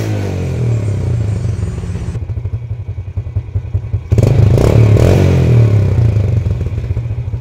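Yamaha Jupiter Z's single-cylinder four-stroke engine settling back to a pulsing idle, then revved sharply about four seconds in and easing back down. Its air-injection line to the exhaust is blocked off with a metal plate, so all the exhaust leaves through the muffler instead of the split, 'stereo' sound it had before.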